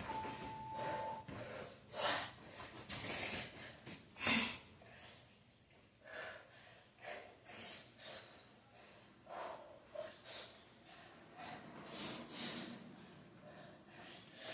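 A person breathing hard during a bodyweight cardio workout: repeated heavy, noisy exhales. A single steady electronic beep about a second long sounds at the start.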